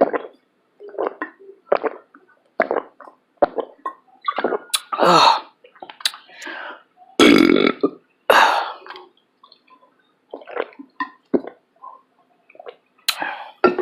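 A woman burping loudly, about three long burps in the middle, among short wet mouth noises at close range.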